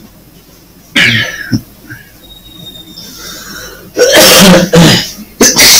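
A man coughing: one cough about a second in, then a run of three or four harder coughs from about four seconds in.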